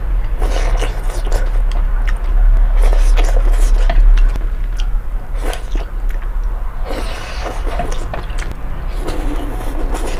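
Slurping and chewing mouthfuls of instant noodles in soup close to the microphone, in irregular wet bursts, over a steady low hum.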